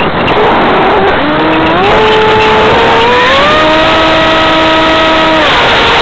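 Motor and propeller of an RC flying wing heard from its onboard camera, under loud wind rush on the microphone. About a second in, the motor's whine rises in pitch in steps as the throttle opens for a climb, holds steady, and drops back near the end.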